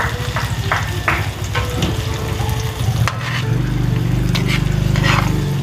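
Chopped onions and garlic sizzling as they sauté in oil in a wide metal wok, with a metal ladle scraping and clanking against the pan as it stirs. A low droning hum grows louder about three seconds in.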